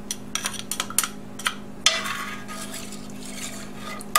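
A spoon clinking a few times against a glass bowl and the pot as powder is tipped in, then stirring liquid in an enamelled Dutch oven, swishing and scraping, from about two seconds in.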